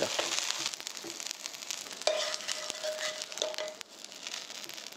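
Minari and squid pancakes frying in cooking oil in a nonstick pan: a steady sizzle full of small crackles, which drops quieter near the end.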